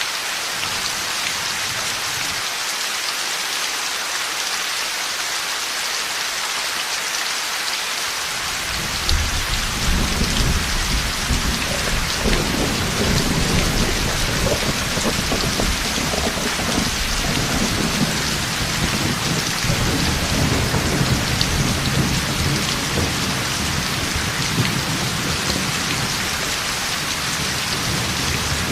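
Heavy rain falling steadily. About nine seconds in, deep rolling thunder starts and keeps rumbling under the rain.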